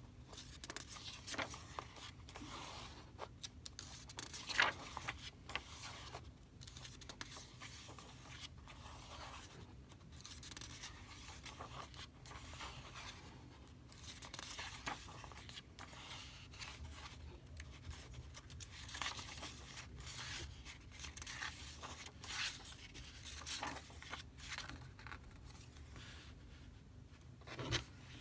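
Paper pages of a softcover sketchbook being turned by hand, rustling and swishing again and again. Near the end the book is closed with a soft thump.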